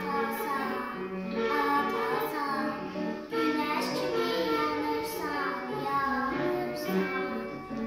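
A young girl singing a song over instrumental backing music.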